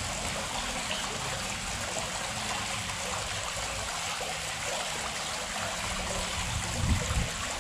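Steady rush of running water, with a couple of low thumps near the end.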